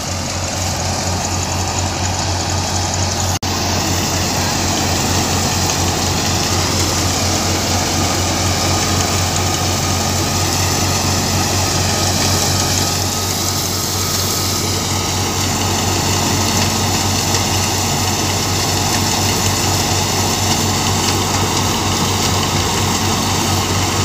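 Engine of farm harvesting machinery running steadily under load, a continuous low hum with mechanical noise over it, broken once by a brief dropout about three seconds in.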